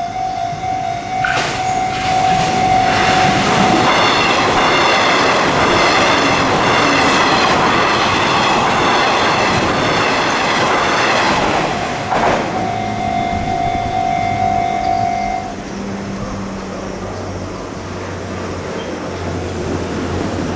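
Level-crossing warning bell ringing in a steady repeating tone while a Nishitetsu electric train passes loudly over the crossing. The train's noise swamps the bell for about ten seconds. The bell is heard again once the train is gone and stops about fifteen seconds in, leaving the low hum of road vehicles waiting at the crossing.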